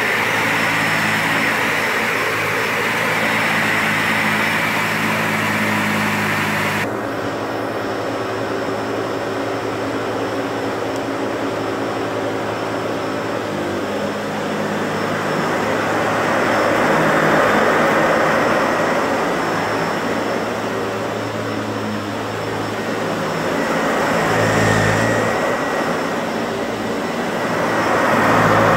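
Dyson Ball Animal 2 upright vacuum cleaner running on carpet with its brush bar engaged: a steady motor whine. The tone changes abruptly about seven seconds in, and later it swells louder several times as it is pushed back and forth.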